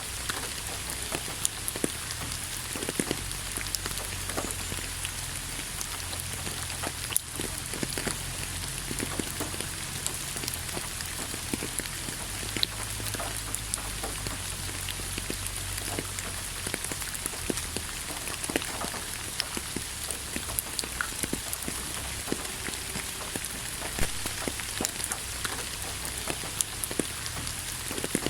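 Steady rain falling on a surface, with many close drops ticking sharply through it and a low rumble underneath.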